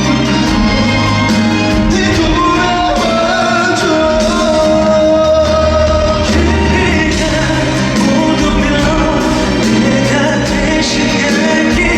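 Live concert performance of a pop song: a male voice singing sustained, gliding melody lines over full band accompaniment.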